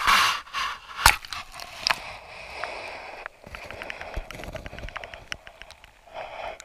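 A GoPro in its waterproof housing being dunked through a hole in the ice: rough handling scrapes and a sharp knock about a second in. Once it is under water, a run of small muffled clicks and crackles follows.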